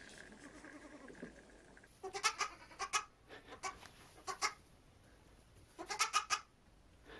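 An animal calling out in short, pitched cries: a quick run of calls about two seconds in, a couple of single calls, then another run about six seconds in.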